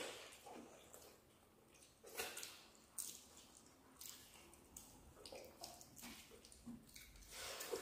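Faint, wet eating sounds in short scattered bursts: fingers mixing rice with curry and mouths chewing and smacking.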